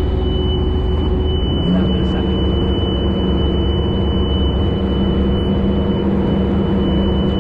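Sherp amphibious ATV's engine running steadily under way, heard from inside the cabin; about two seconds in the engine note steps up in pitch and holds there. A thin, steady high whine sits over the drone.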